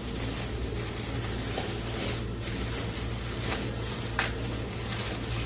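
Steady low hum of a running kitchen appliance, with a few faint clicks of handling about three and a half and four seconds in.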